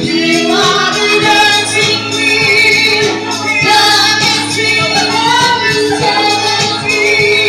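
A young girl singing into a microphone over a loud backing track with a steady beat, amplified through a PA system.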